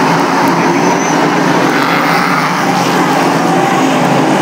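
Several small winged speedway race cars running hard together round a dirt oval, their engines blending into one loud, steady drone.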